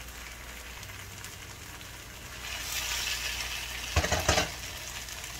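Spiced cabbage and eggs sizzling in a pot. The sizzle swells about halfway through as a wooden spatula stirs it, and the spatula knocks a few times against the pot about four seconds in.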